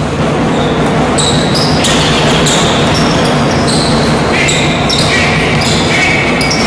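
Basketball game in a hall: sneakers squeaking on the wooden court, many short high squeals, and the ball bouncing, over a steady loud wash of hall noise.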